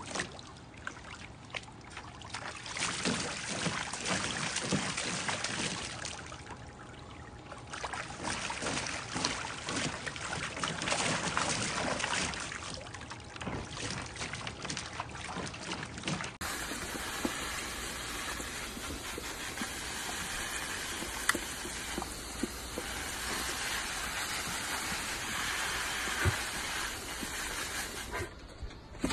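Water from a garden hose splashing into a plastic kiddie pool, with a husky lapping and biting at the stream. About sixteen seconds in, this gives way to a hose spray nozzle spraying water onto a wooden planter.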